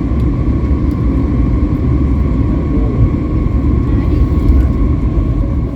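Airbus A321neo cabin noise during the approach to landing: a loud, steady low rumble of airflow and engines, with a steady engine whine running through it.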